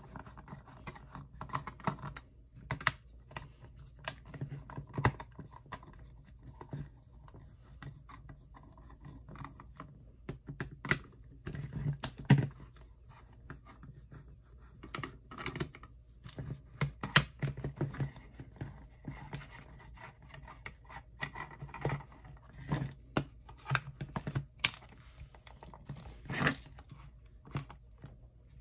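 A hand screwdriver working screws out of a toy R2-D2's plastic leg housing, with irregular clicks, scrapes and knocks as the plastic parts are handled.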